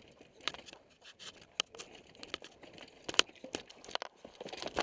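Mountain bike clattering down a rocky trail: irregular sharp clicks and knocks from the chain, frame and tyres striking rocks, getting busier in the second half.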